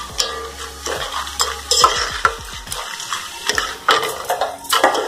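Dried kavalu peel strips deep-frying in hot oil, sizzling as they puff up, while a slotted steel spatula stirs them, clinking and scraping against the metal pot again and again.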